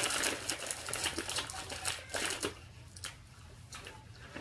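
Plastic foil snack bag crinkling as a hand reaches in and handles the pieces inside: a rapid run of small crackles that thins out after about two and a half seconds.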